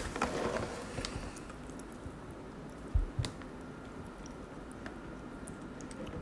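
Faint small clicks and rustles close to the microphone, with one dull thump about three seconds in, like something knocking against the table.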